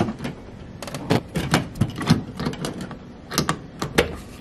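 Irregular plastic clicks and knocks as a battery charger's plug and cord are handled and pushed into a wall outlet.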